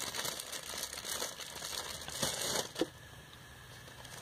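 Packaging crinkling and rustling as items are handled and taken out of an order box, with a couple of light knocks. It dies down about three seconds in.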